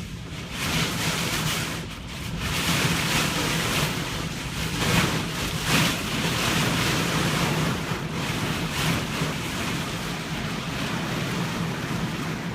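Loud rushing noise of wind and water, swelling and easing in surges, with wind buffeting the microphone and a steady low hum underneath.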